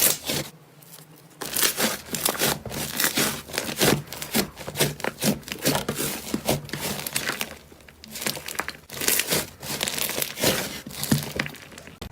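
Slime being squeezed and worked by hand, giving a dense run of crackling, crinkly pops and squelches, with two brief lulls.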